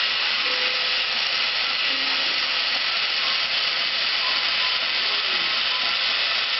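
Fisher-Price Drillin' Action battery toy drill running, a steady unbroken whir as it drives a plastic bolt back into the toolbox.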